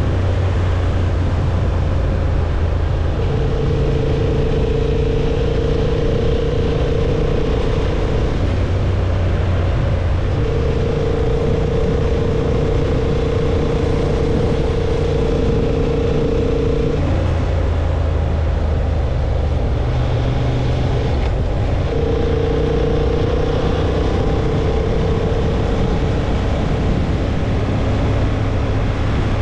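Honda CB750 Hornet's parallel-twin engine running at a steady road speed, over a constant rushing noise. The engine tone holds for several seconds at a time and shifts to a new pitch a few times, about 3, 10, 17 and 22 seconds in.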